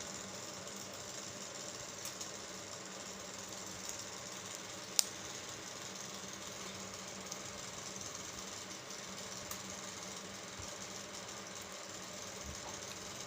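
Steady background hum and hiss, with one sharp click about five seconds in.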